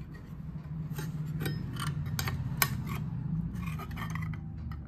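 A circular saw blade and washer clinking against the saw's metal spindle as the blade is fitted and seated: a run of short metallic clicks between about one and three seconds in, a few softer ones near the end, over a steady low hum.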